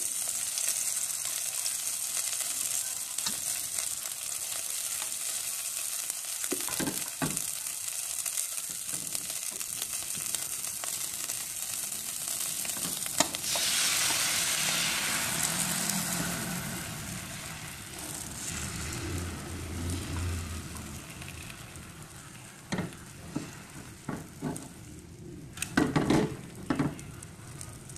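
Bánh xèo batter frying in hot oil in a pan, a steady sizzle. About 13 seconds in the sizzle grows louder, then dies down over a few seconds. Near the end come a few short knocks of a utensil against the pan.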